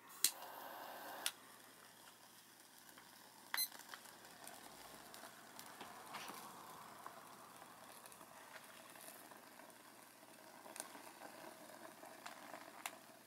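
Jet torch lighter clicking and hissing for about a second as it lights two solid fuel tablets in pocket stoves, with another click about three and a half seconds in. After that comes the faint, steady sizzle and light crackle of a hexamine tablet and an alcohol-type solid fuel tablet burning.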